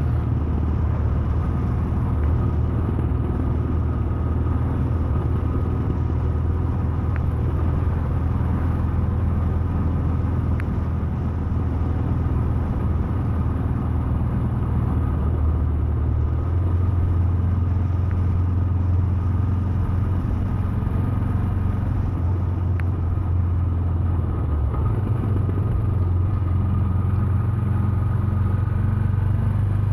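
The 411 cc air-cooled single-cylinder engine of a 2017 Royal Enfield Himalayan motorcycle runs steadily while riding. Its note steps up in pitch about halfway through, dips briefly, then rises again near the end.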